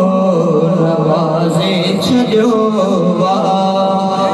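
A man singing a Sindhi naat, a devotional poem in praise of the Prophet, in long drawn-out notes that waver and bend in pitch.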